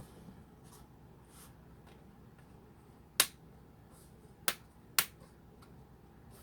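Plastic snap clips of a laptop screen bezel clicking into place as the bezel is pressed back on: three sharp snaps in the second half, the last two about half a second apart, after a faint one at the start.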